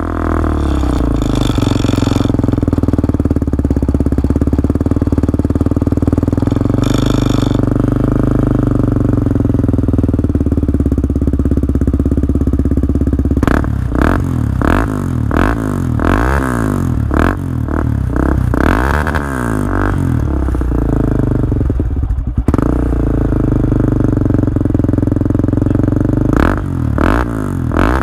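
Honda TRX400EX quad's single-cylinder four-stroke engine through an HMF slip-on exhaust, idling steadily, then revved in a run of quick throttle blips from about halfway through. It drops back to idle and is blipped again near the end.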